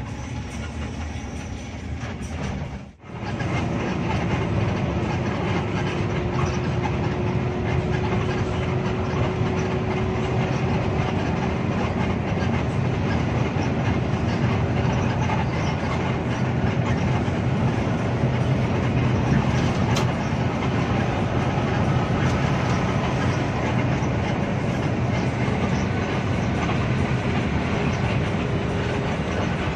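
Steady drone of a Hino RK8 R260 coach's diesel engine and tyres, heard from inside the cab while cruising at highway speed. The level drops briefly about three seconds in, then holds steady, with a faint steady whine for a while.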